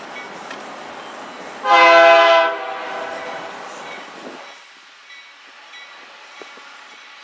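Approaching diesel locomotive's air horn: one blast of about a second, several tones sounding together, about two seconds in, over a steady rumbling noise that drops away about four and a half seconds in.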